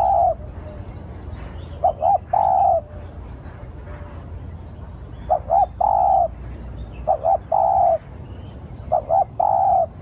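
Spotted dove cooing, repeating its phrase of two quick short coos followed by one longer, drawn-out coo about four times. Faint high chirps of small birds sound between the phrases.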